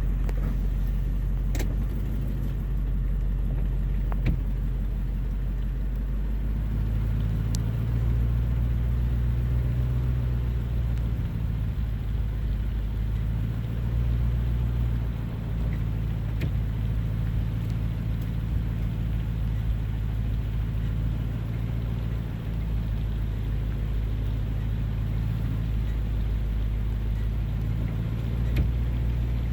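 Steady low engine rumble, with a few sharp clicks.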